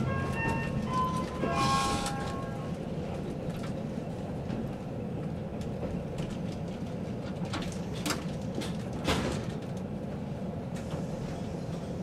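The JR Shikoku onboard chime finishes its melody in the first two seconds or so, over the steady running noise of a 185-series diesel railcar heard from inside the cabin. Later on, two sharp clicks about a second apart cut through the rumble.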